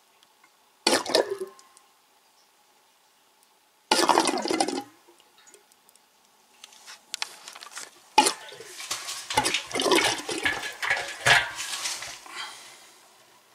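Water gushing and splashing out of an old well pressure tank's outlet onto a concrete floor as the tank drains, in three spells: a short one about a second in, another at about four seconds, and a longer run from about eight to twelve seconds. The tank's rubber diaphragm has failed, letting water into the space above it.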